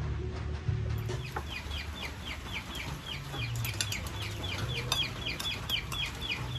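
A bird peeping in a quick, regular series of short, high, falling notes, about five a second, starting about a second and a half in, over a low rumble.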